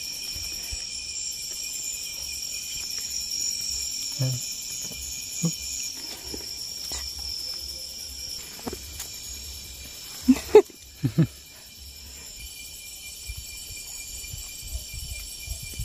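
Night insect chorus, crickets chirring steadily in several high overlapping pitches, with a few sharp knocks and rustles from hands and feet in the grass, the loudest three close together about ten to eleven seconds in.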